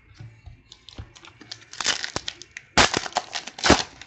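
Trading cards being handled and slid against each other: a run of crinkly rustles and small clicks, with two louder, sharper rustles in the last second or so.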